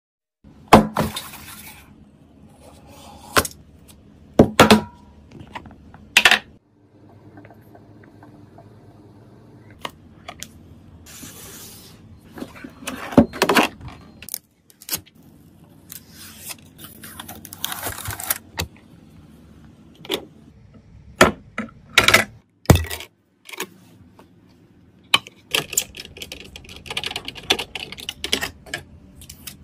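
Close-up handling sounds of computer parts and their packaging: sharp clicks and knocks as box lids and parts are set down and opened, with short sliding rustles. Near the end comes a run of small quick ticks as a precision screwdriver turns a screw into the motherboard's M.2 heatsink.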